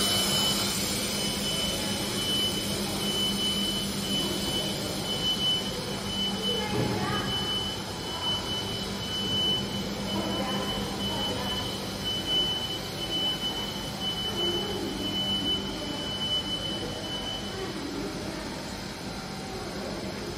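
Solar panel production-line machinery running in a factory hall: a steady mechanical hum under a thin, high-pitched whine that stops near the end.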